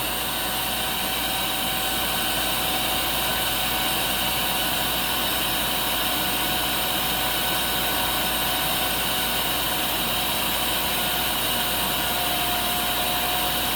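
Hoover S3639 WindTunnel Plus canister vacuum's motor running steadily at the body intake, a rush of air with a steady whine on top.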